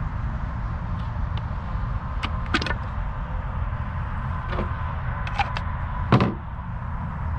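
Several sharp wooden knocks and clatters, with one heavier thump about six seconds in, as pieces of firewood are handled and laid in the fire pit. A steady low rumble runs underneath.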